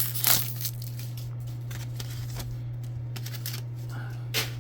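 Trading cards being slid and flicked through by hand, with a few sharp card flicks in the first half-second and another near the end, over a steady low hum.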